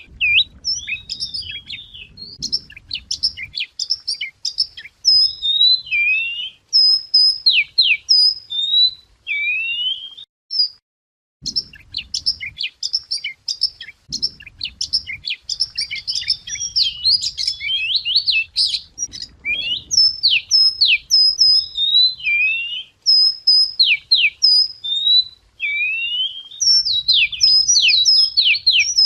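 Wagtail (chìa vôi) song: a fast, varied run of high whistled notes, sweeps and trills. There is a short pause about ten seconds in, after which the same sequence appears to start again.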